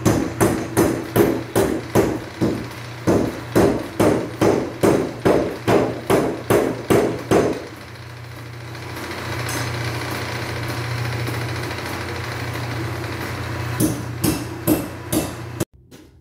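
Beaudry No. 5 mechanical power hammer striking a red-hot iron bar in a steady run of blows, about three a second. After about eight seconds the blows stop and a steady hum remains. A few more blows come near the end, then the sound cuts off suddenly.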